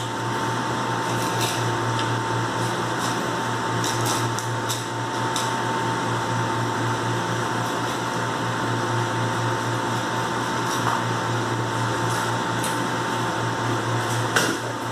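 A steady machine hum with a constant high whine, like a running fan or motor, and a few light, brief clicks and scrapes of a knife working a salmon fillet on a cutting board.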